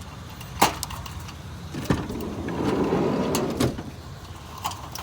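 Fluorescent light fixture with a heavy ballast being handled and loaded into a vehicle: a sharp knock, a thump about two seconds in, then a rough scraping stretch that ends in another knock.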